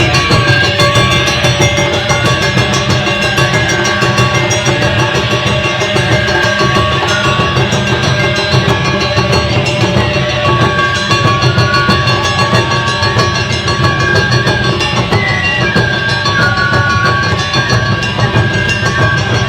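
Live Japanese taiko drum ensemble playing a fast, driving beat of rapid, even drum strokes, with a high held-note melody over it.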